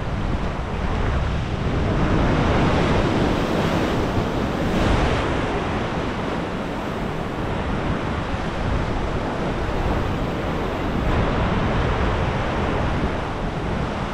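Wind blowing on the microphone over choppy sea water breaking into whitecaps: a steady rushing noise with a low rumble.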